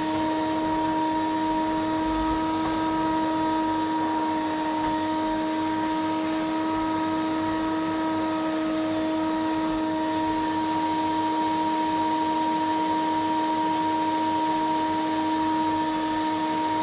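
Vacuum cleaner running steadily: a constant motor whine with a few steady tones over a rush of air noise.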